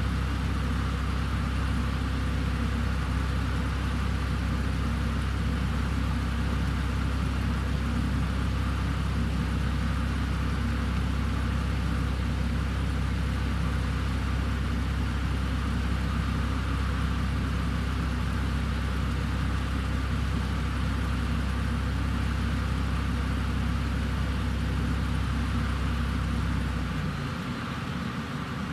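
1996 Ford Falcon engine running steadily with no revving. Its low note cuts out near the end.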